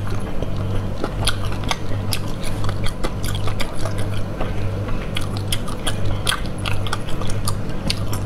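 Close-miked chewing of snail meat in spicy sauce: many short, wet mouth clicks and smacks scattered irregularly, over a steady low hum.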